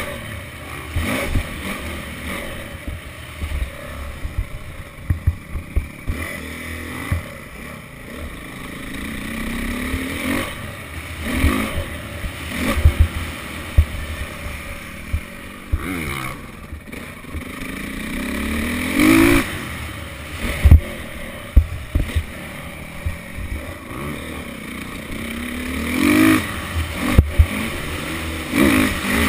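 Dirt bike engine revving up in repeated rising runs and dropping back off the throttle while riding a motocross track, with occasional sharp knocks and thuds over the bumps.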